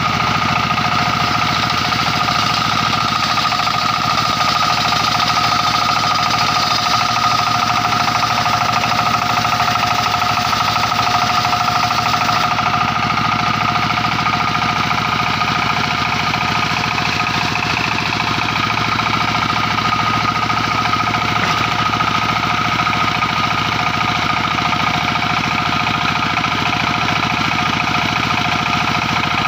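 Engine-driven circular sawmill machine running steadily: a fast engine pulse under a steady high whine.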